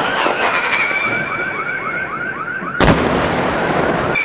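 Maltese daylight fireworks: a loud whistle slides slowly down in pitch over a warbling chirp that repeats about three or four times a second. Then a single sharp bang goes off about three seconds in, and a new whistle starts right at the end.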